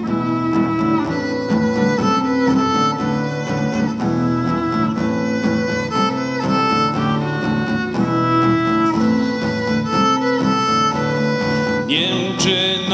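Instrumental introduction of a folk-style song played on violin with acoustic guitar accompaniment, the violin carrying the melody. Near the end the sound grows brighter as the singers' voices come in.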